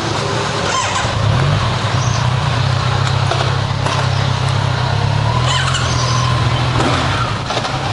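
Honda CB1100EX air-cooled inline-four engine running at low revs as the motorcycle creeps forward at walking pace, a steady low drone that grows a little stronger about a second in.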